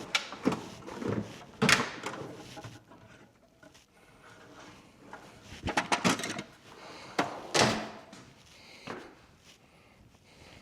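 Irregular knocks and scrapes of hand work on a motorcycle tire, as a trimmed puncture plug is pressed down into the tread. The sounds come in short clusters with quiet gaps between.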